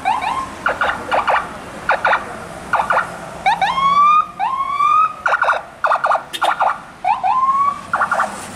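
Electronic vehicle siren sounding in short rising whoops that level off, alternating with bursts of rapid stuttering blasts, over and over.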